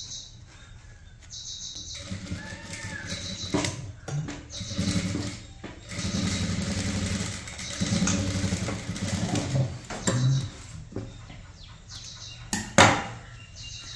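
Sewing machine stitching a blouse shoulder seam, running in several short runs and stopping about ten seconds in. A single sharp click comes near the end.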